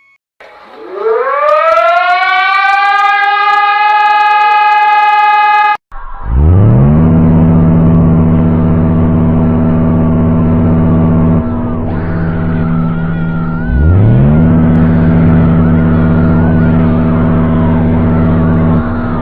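Warning sirens from emergency alert recordings, loud. The first winds up over about five seconds to a steady high wail and cuts off suddenly. A lower siren then winds up and holds, dips about five seconds later, and winds up again to the same steady tone.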